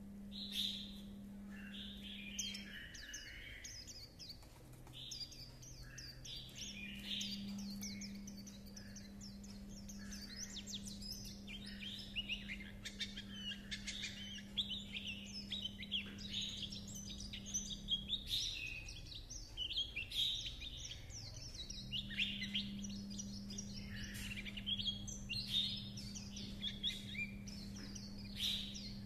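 White-eye (khuyên) singing a long, rapid chattering warble of quick high twittering notes, the continuous 'líu chuyện' song style.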